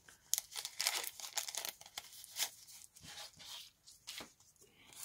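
Paper being handled, rustling and crinkling in short scratchy bursts, busiest in the first half and sparser after.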